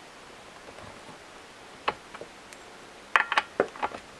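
Metal clicks and clinks of a spark plug wrench working on the clutch cover nuts of a Jonsered chainsaw, as the nuts are loosened: a single click about two seconds in, then a quick run of clicks near the end.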